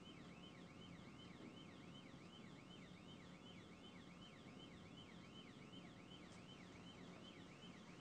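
Faint police siren on yelp, a rapid rising-and-falling wail repeating about three times a second, over a steady low rumble of road and engine noise heard from inside a pursuing police cruiser.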